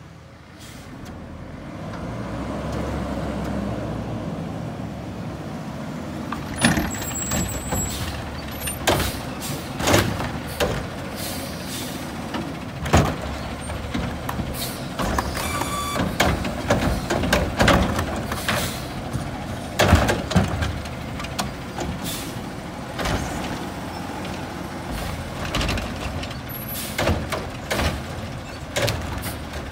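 Natural-gas McNeilus front-loader garbage truck's engine running as it pulls up, then its hydraulic cart arm lifting and tipping curbside carts, with repeated bangs and clatter of the carts being shaken out and set down.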